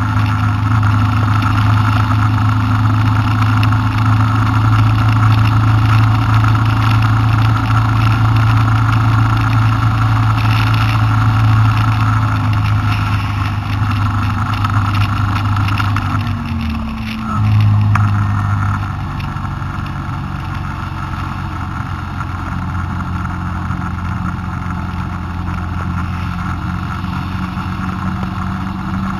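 A car's engine and road noise heard from inside the cabin while driving, a steady drone. About sixteen seconds in, the engine note briefly drops and changes pitch. After that it runs quieter and lower.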